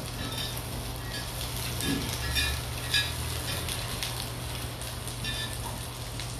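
Chicken skewers sizzling on a hot grill pan, a steady frying hiss, with a few light clicks of metal tongs against the pan, the sharpest about three seconds in. A steady low hum runs underneath.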